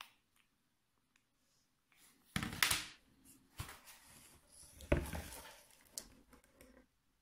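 Cardboard box being handled close to the microphone: rustling and scraping that starts about two seconds in, with a sharp knock near the middle and a click about a second later.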